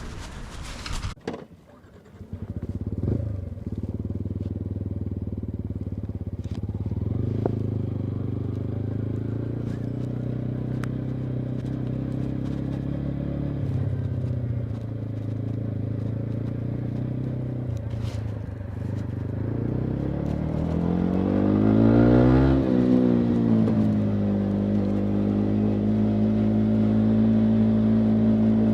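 2019 Yamaha MT-125's single-cylinder four-stroke engine with a full Akrapovic exhaust, idling steadily. It takes a couple of short throttle blips and one longer rev that rises and falls about twenty seconds in, then settles back to idle.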